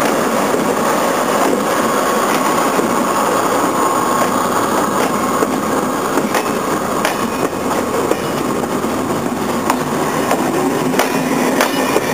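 SNCF BB 69400 diesel locomotives and a coach rolling slowly past, engines running steadily, with scattered sharp clicks of the wheels over the rail joints.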